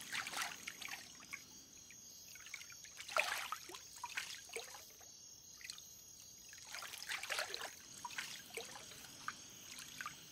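Water splashing and trickling as a bather scoops it up with her hands and lets it run back over her skin into the pond. It comes in a few separate spells.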